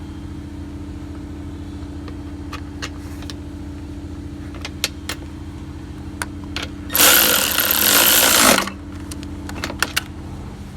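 A steady low mechanical hum from a running machine, with scattered light clicks and taps. About seven seconds in, a loud hiss lasts about a second and a half.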